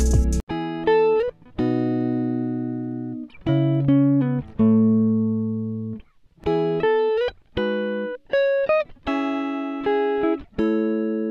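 Background music: a plucked guitar playing slow single notes and chords, each one ringing out and fading before the next.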